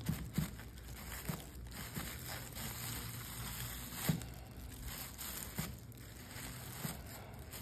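Crumpled plastic bag crinkling as it is dabbed again and again against a canvas, making a string of irregular taps, the loudest about four seconds in.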